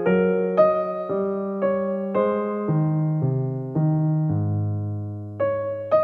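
Background music: a soft piano piece with notes and chords struck about twice a second, each fading away, and a longer held low chord in the second half.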